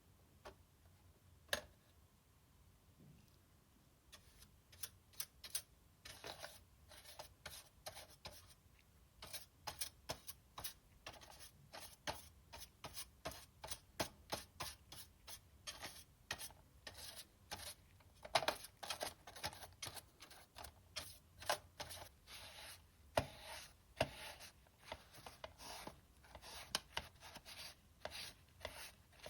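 Hand scrubbing on a PS4 Slim's cooling fan during cleaning: short, irregular rubbing strokes, about two a second, starting a few seconds in, after a single sharp click near the start.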